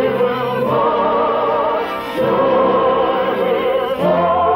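Orchestral music with operatic choral singing from an old radio broadcast: long held notes with vibrato, moving to a new chord about two seconds in and again near the end.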